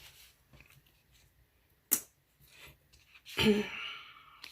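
Quiet handling of planner pages and craft supplies, with a single sharp click about two seconds in and a short vocal sound, like a sigh or hum, a little past three seconds.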